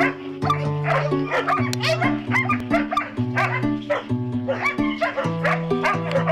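Background music with a held, stepping bass line, with many short dog barks and yips throughout.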